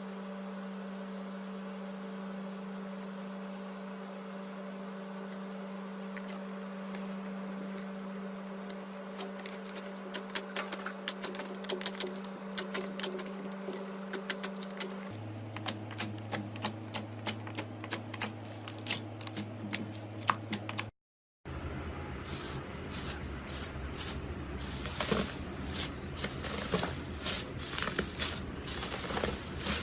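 Slime being squeezed and worked by hand, crackling and popping in quick irregular clicks over a steady low hum. After a brief cut about two-thirds of the way through, a second clip starts with denser crackling.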